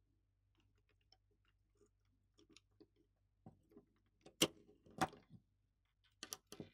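Light clicks and taps of plastic robot-kit panels being handled and fitted against a plastic chassis: faint ticks at first, two sharper clicks about half a second apart past the middle, and a quick few more near the end.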